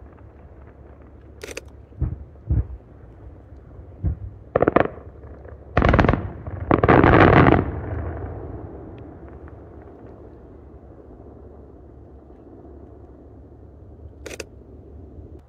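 Aerial firework shells bursting: a string of separate booms, then a dense, loudest volley of reports about six to eight seconds in, followed by a rumble that slowly fades. A single sharp crack comes near the end.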